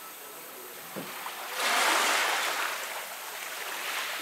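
Shallow water rushing and splashing at the surface: a swell of noise that builds about a second and a half in, holds for about a second, then fades, with a smaller swell near the end.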